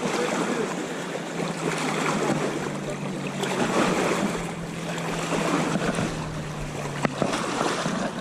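Rushing river water, a steady noisy wash, with a steady low hum through the middle and a sharp click about seven seconds in.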